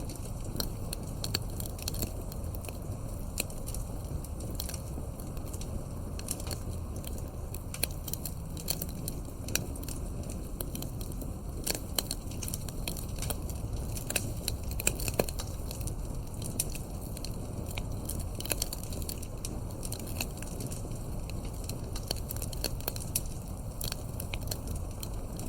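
Wood fire crackling: dense, irregular pops and snaps over a steady low rumble of burning logs.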